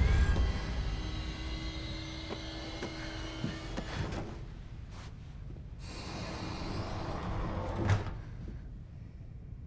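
A low rumble dies away over the first second, then soft movement and handling sounds as a person climbs out of a bed, with a short knock about eight seconds in.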